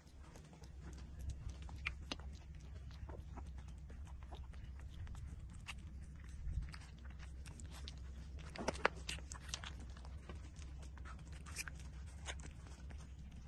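Newborn puppies suckling at their mother's teats: faint, irregular wet clicks and smacks, one louder about nine seconds in, over a low steady hum.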